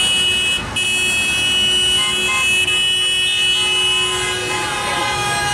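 Vehicle horns from passing traffic held in long steady blasts, honking in support of the protest. A brief break comes about half a second in, and a second, lower-pitched horn joins about two seconds in.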